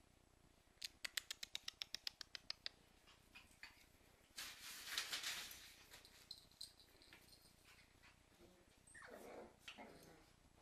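Cairn terrier puppies at play: a quick run of claw clicks on a tile floor, about seven a second, then a short rustle, then the puppies giving small play whines and yips near the end.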